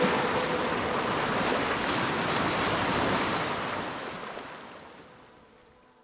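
Ocean surf washing over sand and rocks, a steady rush of water that fades away over the last two seconds.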